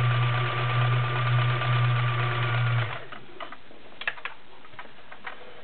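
Kenmore model 1525 all-metal sewing machine running at a steady speed, sewing a zigzag stitch with an even motor hum. It stops about three seconds in, followed by a few light clicks.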